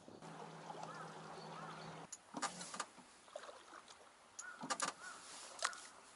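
Bass boat's electric trolling motor humming steadily, cutting off about two seconds in, followed by a few sharp clicks and knocks on the boat.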